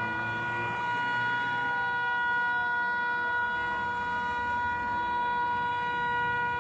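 A single steady, horn-like tone held without a break, with fainter sliding tones beneath it.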